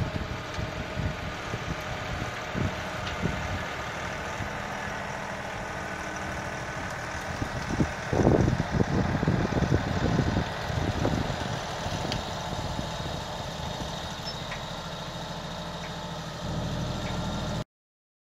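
Kioti NX6010 tractor's diesel engine running, growing louder and rougher for a few seconds about eight seconds in, then settling back. It cuts off abruptly shortly before the end.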